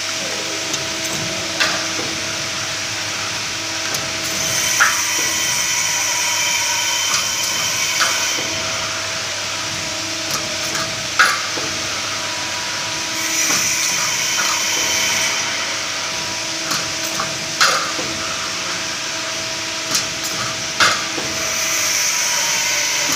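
CNC hydraulic tube-punching machine at work: the hydraulic power unit hums steadily while sharp metallic clacks come every few seconds as the punch strokes and the rectangular steel tube is fed forward, with the loudest clack about halfway. Stretches of hiss come and go three times.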